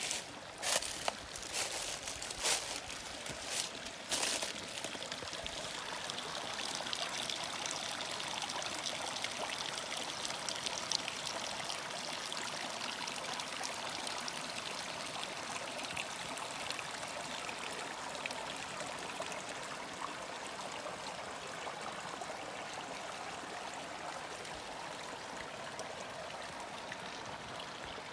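Small rocky woodland creek running and trickling over stones, a steady even babble. In the first four seconds a handful of sharp crackles and knocks sit on top of it.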